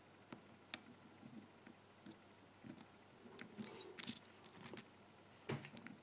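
Pick and tension wrench working the pins of a rekeyable five-pin pin-tumbler padlock: faint metal scraping with scattered sharp clicks, a quick run of them about four seconds in.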